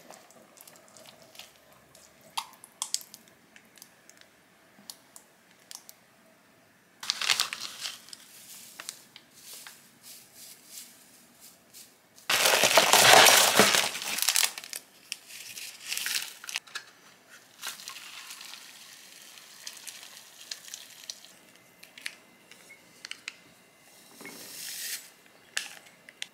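Food-prep handling sounds: scattered light taps and clicks of a spoon, plate and containers, with plastic packaging crinkling. The crinkling is loudest in one burst of about two seconds, roughly twelve seconds in.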